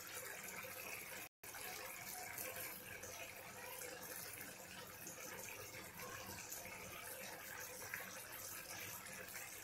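Field-bean curry simmering in an open steel pan on a gas burner: a faint, steady bubbling, broken by a momentary dropout about a second in.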